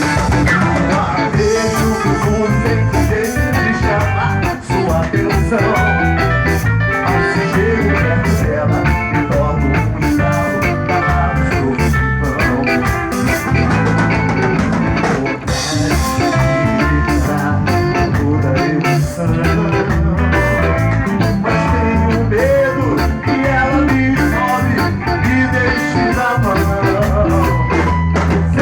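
A band playing an MPB song live, with guitar and drum kit over a steady, rhythmic low end.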